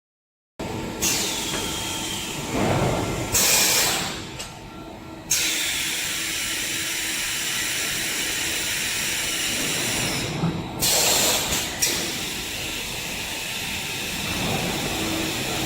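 Twin-strand PVC pipe extrusion line running: a steady machine hiss with a faint hum under it, broken by two louder rushing bursts, about three and eleven seconds in.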